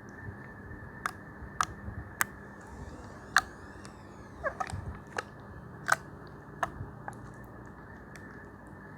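Homemade slime being squeezed and poked, giving about ten sharp, irregular clicks and pops.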